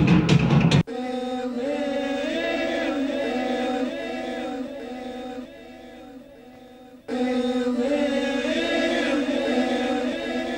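Chanted singing: several voices holding long notes that slide slowly up and down, over a steady drone. A drum-heavy track cuts off abruptly under a second in. The singing fades about five seconds in, almost drops away, and comes back strongly about seven seconds in.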